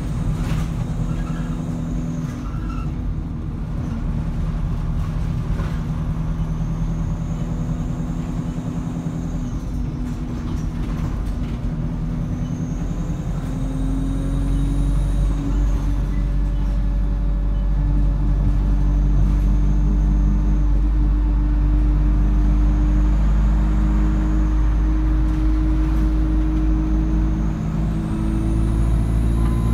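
Engine of an ADL Enviro200 single-deck bus under way, heard from inside the rear saloon, its note shifting up and down in steps and growing louder in the second half. A faint high whine rises and falls several times over the drone.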